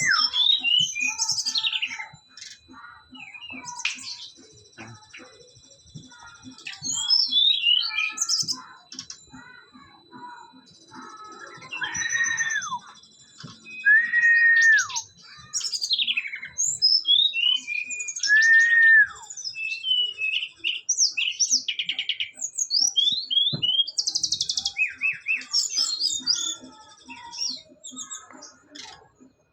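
A sikatan rimba dada coklat (jungle flycatcher) singing in loud, varied phrases of quick falling whistles and chirps. It gives several longer arched whistles in the middle and a fast burst of notes near the end.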